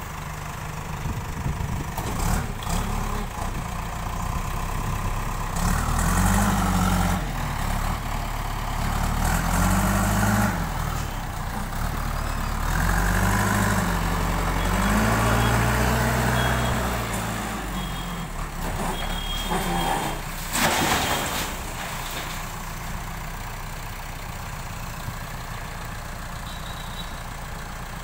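JCB backhoe loader's diesel engine revving up and down in repeated surges as the machine works its loader. A sharp, loud clatter comes about two-thirds of the way through, and the engine then settles to a steadier, lower running.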